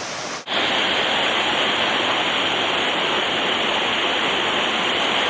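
Steady rush of a rocky mountain stream cascading over boulders and small waterfalls. The sound breaks off for an instant about half a second in, then comes back louder and holds steady.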